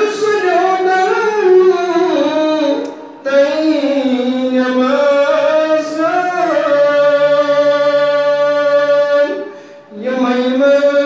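A man singing a naat, a devotional poem in praise of the Prophet, in long held, wavering notes, with two short pauses, about three seconds in and near the end.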